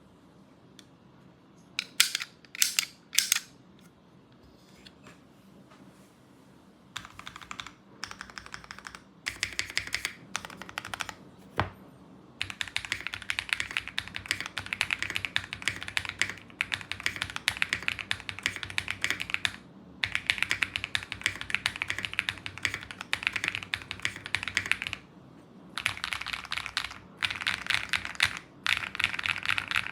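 Custom mechanical keyboard in an acrylic case, with lubed Akko CS Radiant Red linear switches, GMK keycaps and a tape and PE foam mod, being typed on. A few loud single key strikes come about two seconds in, then bursts of typing that turn into fast, continuous typing from about twelve seconds, with a short pause near the end.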